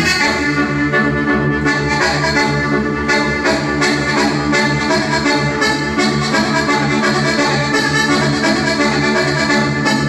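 Sardinian organetto (diatonic button accordion) playing a logudorese dance tune, sa logudoresa seria: a busy melody of quick notes over a steady pulsing bass.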